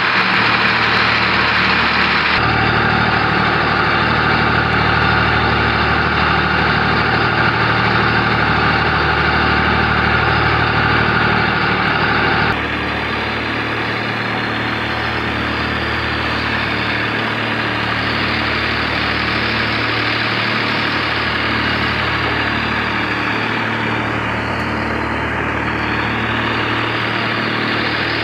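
Eicher 380 tractor's diesel engine running steadily. About twelve seconds in, the sound changes and drops a little to the steady running of the tractor-driven paddy thresher.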